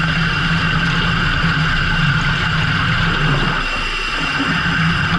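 Fishing boat's engine running steadily, a constant low hum with hiss above it that eases slightly for a moment just before the end.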